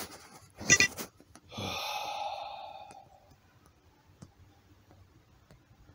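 A man's tired sigh: a sharp intake of breath just under a second in, then a long breathy exhale that fades out over about a second and a half, followed by a few faint clicks.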